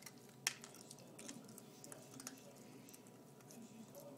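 Puppy eating dry kibble from a stainless steel bowl: faint, irregular crunching and clicking of kibble against the metal, with one sharper click about half a second in.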